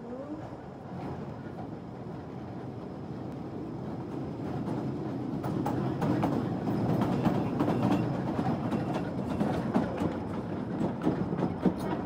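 Kurobe Gorge Railway narrow-gauge train running along the track, heard from on board. The steady rumble grows louder over the first half, and a few sharp wheel clacks come through in the second half.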